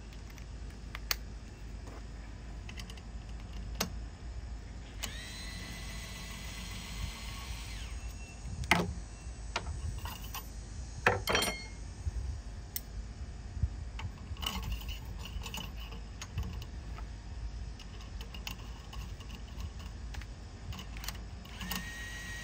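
Panasonic cordless electric screwdriver whirring for about three seconds, then again for about two seconds near the end, as it runs fasteners in and out during an air rifle barrel-liner change. In between come sharp clicks and clinks of small metal parts and tools being handled and set down.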